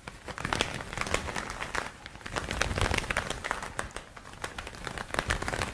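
Leather gloves worked as a foley prop, making quick, irregular leathery slaps and flutters in three runs with short pauses between.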